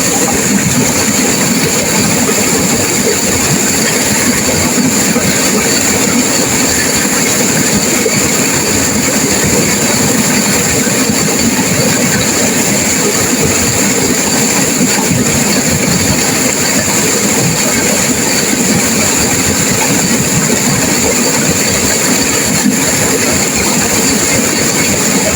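Turbulent river water rushing and crashing over rocks in a steady, loud torrent.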